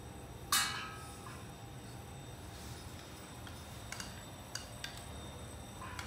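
A sharp metallic clink with a short ring about half a second in, then a few light ticks near the end: a metal rod tapping the metal dish of an electric keratin glue melting pot.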